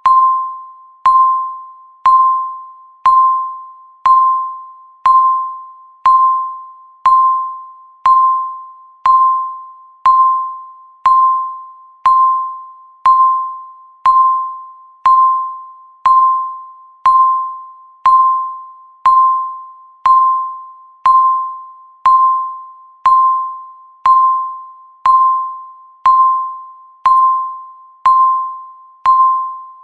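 Countdown timer beep sounding once a second, evenly spaced. Each is a single clear tone that strikes sharply and fades away before the next one.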